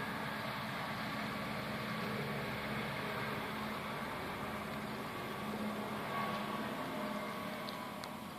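Steady machine hum: a constant low drone with a few faint higher tones over an even hiss.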